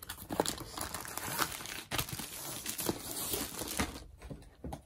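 Diamond painting kit packaging crinkling and rustling as it is handled and unpacked by hand, in a run of irregular rustles that dies down about four seconds in.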